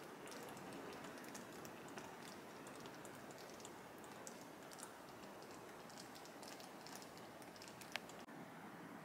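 Faint crackling of a creamy sauce simmering in a frying pan: a steady low hiss sprinkled with small irregular ticks and pops, one sharper tick about eight seconds in.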